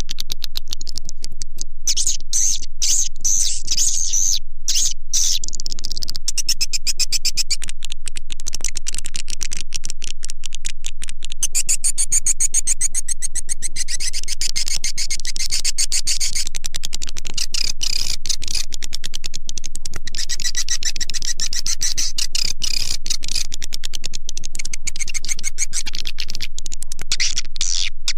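Edible-nest swiftlet call recording, the lure sound played to draw swiftlets into a swiftlet house: dense, rapid high-pitched chirping and clicking, over a steady low hum.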